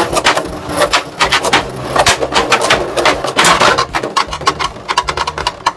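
Two Beyblade Burst spinning tops, Judgement Valkyrie and Judgement Joker, clashing and skittering around a clear plastic stadium: a rapid, irregular clatter of knocks as they hit each other and the stadium wall.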